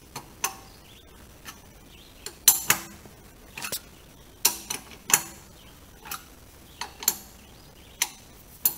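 Wrench turning the nut of a threaded-rod bushing press, giving sharp metallic clicks at an irregular one or two a second, some in close pairs, as a rear axle bushing is drawn into the beam.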